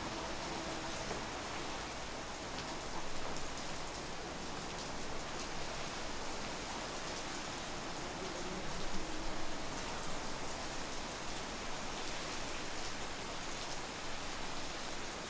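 Steady rain falling: an even hiss with many small scattered drop ticks.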